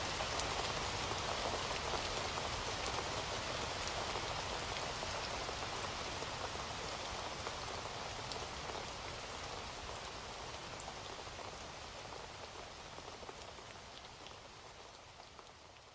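Steady rain falling, with scattered sharp drop ticks, gradually fading out towards the end.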